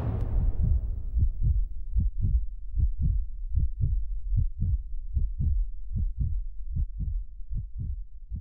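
The closing jingle of a radio programme: the last held chord dies away, then a steady beat of low paired thumps, like a heartbeat, repeats about every half second and slowly grows fainter.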